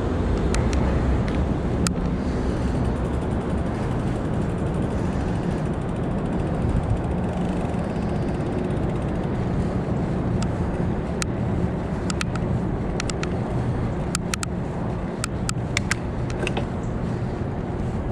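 Steady low rumble of riding a bicycle, heard through a chest-mounted camera, with wind on the microphone. Scattered sharp clicks and rattles come through, more of them in the second half.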